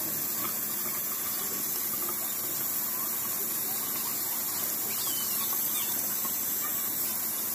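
Kitchen faucet running in a steady stream into a stainless steel sink, splashing over boiled sweet potatoes in a plastic colander as they are rinsed under it to cool them.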